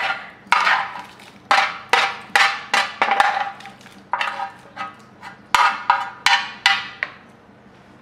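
A utensil scraping and knocking against a metal baking tray as oven-roasted fish is pushed off it into a pot: about a dozen sharp, ringing clanks at irregular intervals, stopping about seven seconds in.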